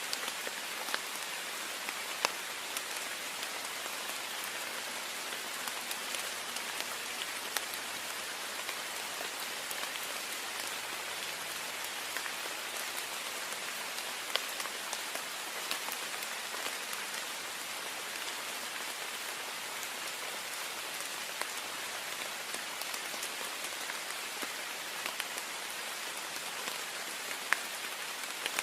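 Heavy rain falling steadily on a window pane, an even hiss with scattered sharp drop taps on the glass.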